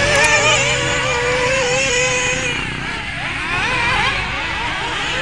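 Small high-revving engines of several radio-controlled racing buggies, their overlapping notes rising and falling with the throttle; one steady note drops away about halfway through.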